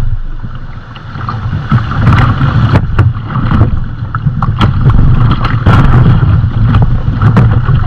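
Fast shallow river water rushing and splashing around the bow of an inflatable kayak running a rocky riffle. There is a loud low rumble and frequent short sharp splashes and knocks against the hull.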